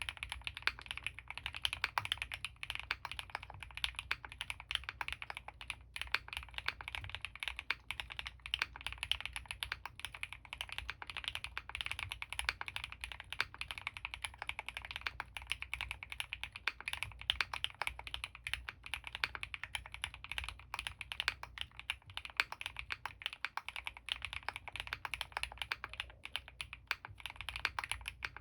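Fast continuous typing on a custom mechanical keyboard: Gateron CJ linear switches lubed with Krytox 205g0, mounted on an Ultem (PEI) plate under GMK Tuzi keycaps, giving a rapid, dense stream of key clacks.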